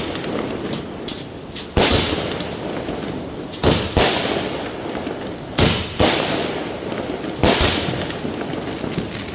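Indian National Fireworks 120-shot cake firing shot after shot, a sharp bang about every two seconds, sometimes doubled, with a noisy hiss lingering between the bangs.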